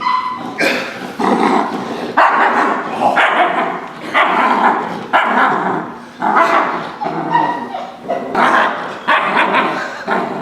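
Young dog growling while gripping a bite sleeve, in repeated rough bursts about once a second. It is the kind of growling in the fight that the trainer points to as a sign of real fight drive rather than play.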